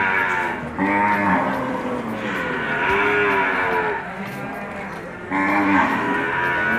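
Cattle lowing: a run of long moos, one after another, with a short lull about two-thirds of the way through.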